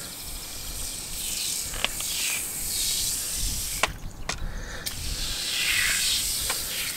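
Super Clean aerosol foam degreaser spraying from its can onto a trailer wheel rim in a steady hiss. The spray stops briefly about four seconds in, then starts again.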